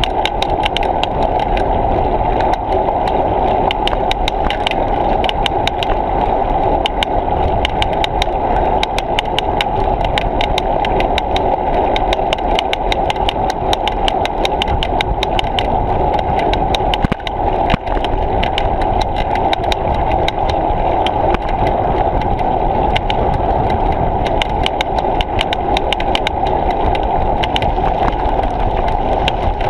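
Steady rumble of a bicycle rolling along a path, picked up through a bike-mounted GoPro, with frequent sharp rattling ticks throughout.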